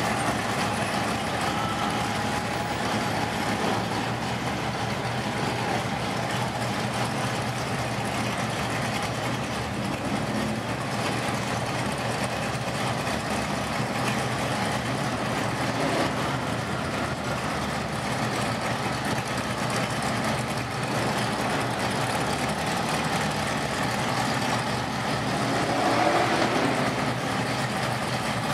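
Engines of classic parade cars idling and creeping past at walking pace, including a customised 1950s Chevrolet pickup: a steady low engine rumble that swells a little near the end.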